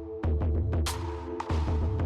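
Electronic background music with a heavy bass and a steady beat.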